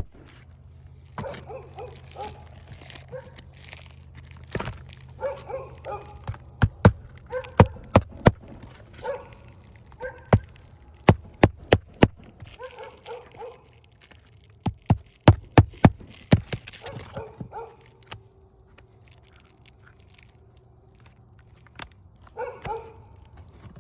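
A dog barking repeatedly in short bursts, with many sharp clicks scattered among the barks.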